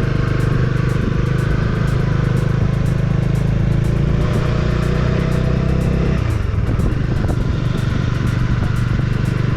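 Bajaj Dominar D400's single-cylinder engine running steadily while the motorcycle is ridden, with road and wind noise. The engine note changes about six seconds in, as if the throttle eases.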